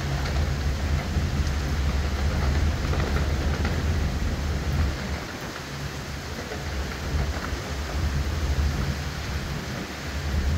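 Hurricane storm noise: heavy rain with wind gusting in a deep low rumble. The rumble eases for a couple of seconds about halfway through, then builds again.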